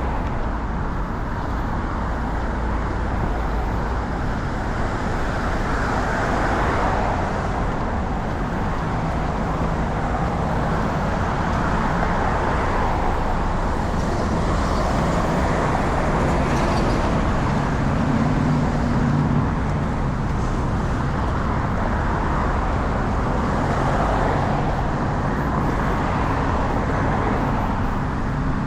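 Steady road traffic: cars and other motor vehicles passing continuously, the noise swelling and easing as each goes by, with a low engine hum strongest midway through.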